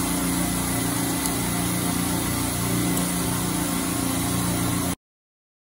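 Steady drone of running machinery: an even hiss over a low hum with a few steady tones, unchanging in level. It cuts off completely about five seconds in.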